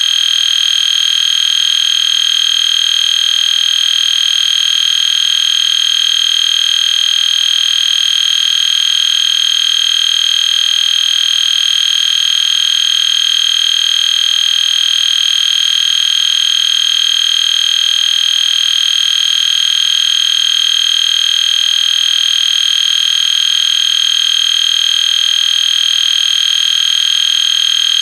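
EST Genesis fire alarm horn sounding continuously: one loud, steady, high-pitched tone with no on-off pattern and no breaks.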